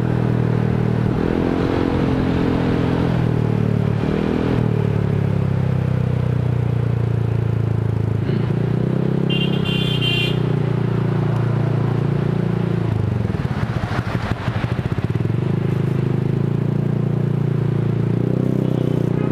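Honda Vario 150 scooter's single-cylinder four-stroke engine running through an F2Racing CL Long aftermarket exhaust while riding, its note rising and falling with the throttle. A short high-pitched beep sounds about ten seconds in.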